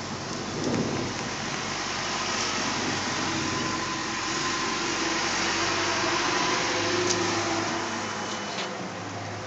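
A backhoe loader's diesel engine running as it drives past, growing louder through the middle and easing off near the end, over a steady rushing noise.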